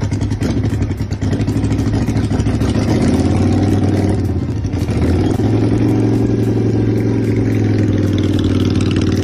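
Yamaha XV535 bobber's air-cooled V-twin running close by with a deep, pulsing beat, getting a little louder about three seconds in and then holding steady.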